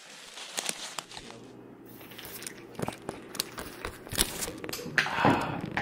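Irregular rustling and crunching, like dry fallen leaves underfoot, with a louder burst of rustling near the end.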